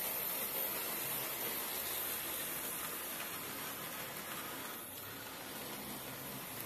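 Model railway train, a BR 64 tank locomotive hauling coaches, running past on the track: a steady hissing run noise of motor and wheels that eases off a little after about five seconds as it moves away.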